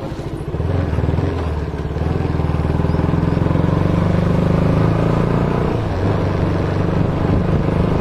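Motorcycle engine running under way, growing louder as the bike picks up speed about a second in, then holding a steady drone.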